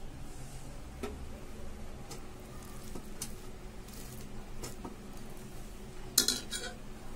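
Metal serving spoon scraping and clinking against a steel pressure cooker and a steel plate as rice is served out, with a few scattered taps and a louder clatter of clinks about six seconds in.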